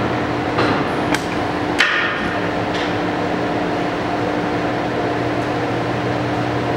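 Monarch 20-CM heavy-pattern lathe running with a steady hum. Four sharp metallic clanks in the first three seconds, the loudest about two seconds in with a brief ring.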